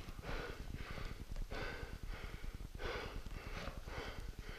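A skier trapped in a glacier crevasse breathing hard close to the microphone, quick breaths about twice a second.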